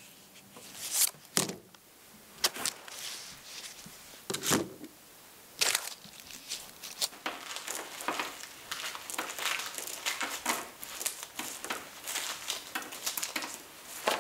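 Dried corn cobs knocking and shuffling against each other as they are handled, then, from about six seconds in, a continuous dry crackling as kernels are rubbed off a cob by gloved hands during shelling.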